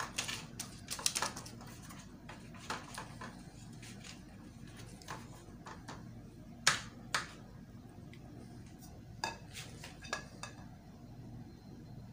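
Silicone pastry brush working oil over baking paper in a metal cake tin, with a scattering of short taps and clinks against the tin, the sharpest about two-thirds of the way through. A faint low hum runs underneath.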